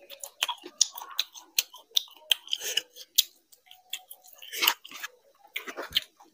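Close-miked chewing of a mouthful of food, with quick wet clicks and smacks of the lips and mouth, and a couple of louder noisy bursts in the second half.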